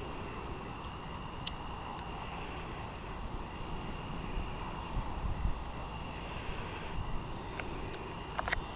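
Wind buffeting the microphone in low, irregular gusts over a steady chirr of crickets, with a few sharp clicks, the loudest a quick pair near the end.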